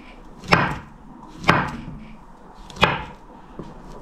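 Chef's knife slicing a banana on a wooden cutting board: three sharp knocks of the blade striking the board, about a second apart.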